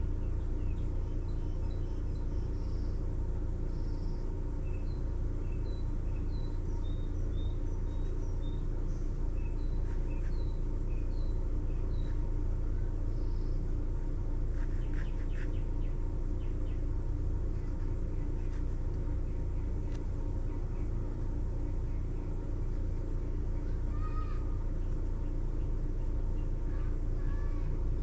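Steady low background rumble, with faint bird chirps scattered through the first half and a few more near the end.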